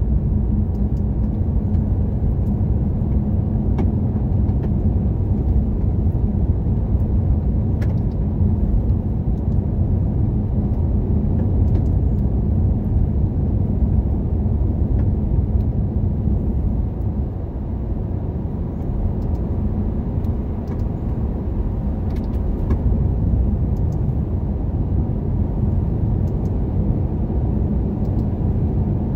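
Steady low rumble of a car driving at speed on an asphalt highway: tyre and road noise with the engine underneath, easing a little about two-thirds of the way through.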